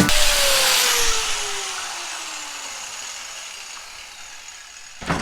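Angle grinder spinning down after being switched off: a falling whine and a high hiss that fade away over about four seconds. A single sharp knock near the end.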